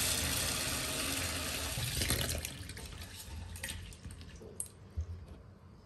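Kitchen tap running into a plastic tub of masoor lentils in a stainless steel sink, filling it with water. The flow stops about two seconds in, followed by a few faint knocks and rattles as the lentils are stirred in the tub.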